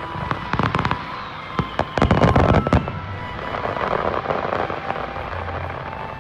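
Aerial fireworks bursting: a run of sharp bangs in the first second, then a louder, dense volley about two seconds in, followed by a crackling fizz that fades away. Music plays faintly underneath.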